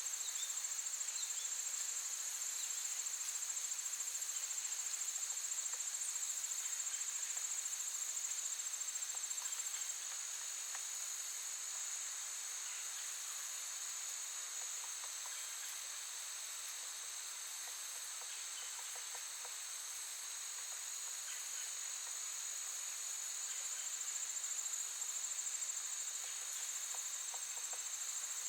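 Crickets chirring in a continuous high-pitched trill, easing slightly in loudness about ten seconds in.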